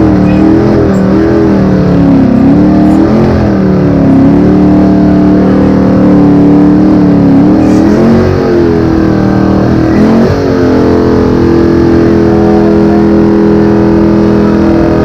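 Car engine revving hard, its pitch rising and falling for about ten seconds, then held steady at high revs for the last few seconds.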